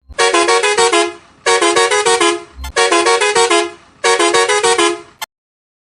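Musical truck horn playing the WhatsApp ringtone tune as a quick run of about seven notes, repeated four times, each run about a second long. A short click comes after the second and the last run, and then it stops.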